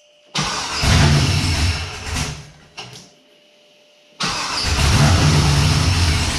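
LQ4 6.0-litre V8 on its first fire-up: it catches about a third of a second in, runs for about two seconds and dies away, then fires again about four seconds in and keeps running loudly.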